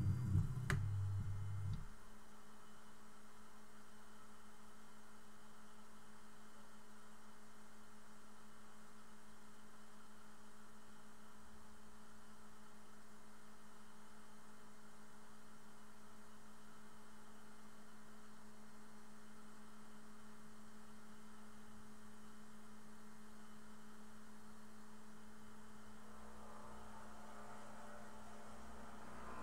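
Delta 3D printer holding still with a single steady low hum, after a louder low rumble of its stepper motors moving dies away about two seconds in. Near the end, motor sound starts to rise again as movement resumes.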